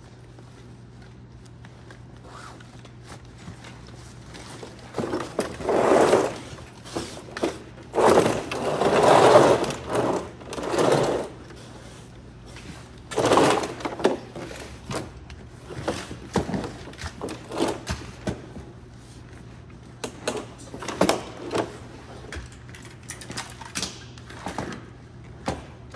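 Firefighters in turnout gear and air packs hauling a downed firefighter onto a plastic rescue stretcher: scraping and rustling of heavy gear against the floor, in uneven swells, then a run of knocks and clatter in the second half, over a steady low hum.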